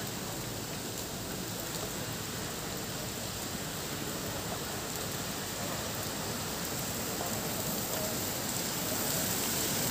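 Steady rushing of a shallow river flowing over rocks, growing a little louder near the end.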